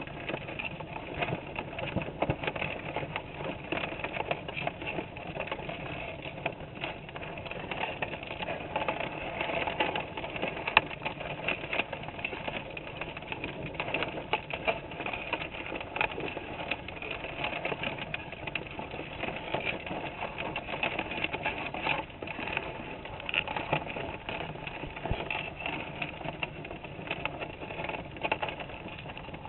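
Continuous rapid, irregular clicking and crackling picked up underwater by a GoPro sealed in its housing inside a wire crawdad trap, as crawdads crawl over the mesh and around the bait.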